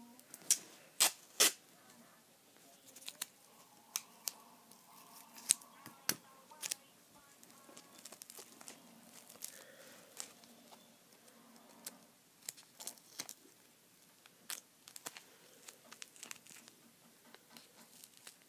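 Tape being pulled off a roll, torn and handled: a run of sharp tearing clicks and crinkles, loudest and densest in the first second and a half, then scattered smaller clicks.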